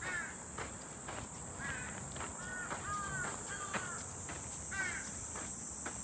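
Footsteps on a dirt forest trail, about two a second, over a steady high-pitched insect drone, with about six short arched bird calls scattered through.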